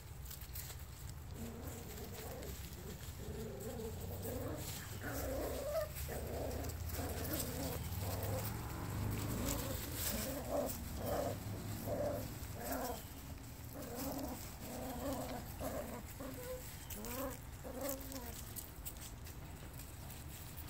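Cavalier King Charles Spaniel puppies growling and yipping in play while tugging a toy, a long string of short high puppy calls that tails off near the end.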